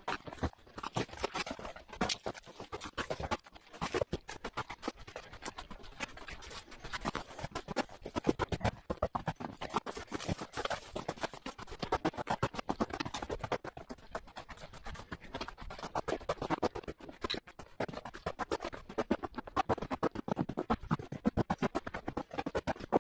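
A hiker's footsteps and trekking-pole strikes crunching on snow and ice: a dense, uneven run of short crunches and scrapes.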